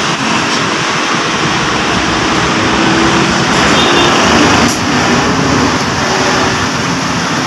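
Steady road-traffic noise, with one sharp click about four and a half seconds in as the plastic power window switch parts are pressed together.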